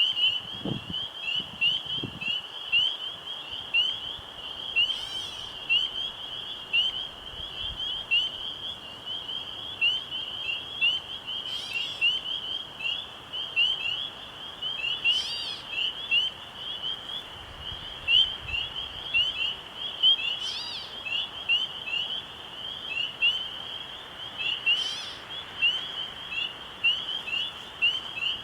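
A chorus of frogs giving rapid, high-pitched chirping calls without a break, with a louder call standing out every four or five seconds.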